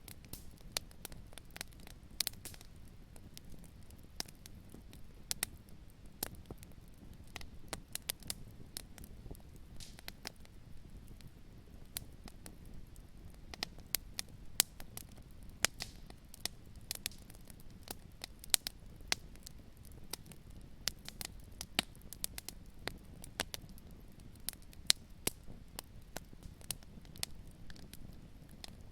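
Fire crackling in a fireplace: irregular sharp pops and snaps, several a second, over a low steady rumble.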